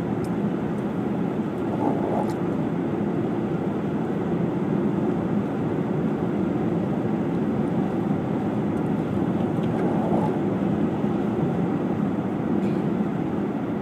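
Steady road noise of a car driving on a highway: engine and tyres running evenly on a wet, icy road.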